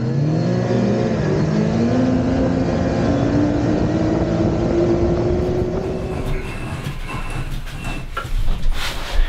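BRP snowmobile engine running at speed on the trail, its pitch rising steadily as the sled accelerates, then easing off into a rougher, noisier sound about two-thirds of the way through. A few knocks come near the end.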